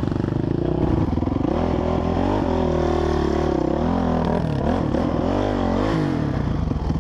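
Honda CRF450R's single-cylinder four-stroke engine running, its revs rising and falling a few times before dropping back to a steady idle near the end.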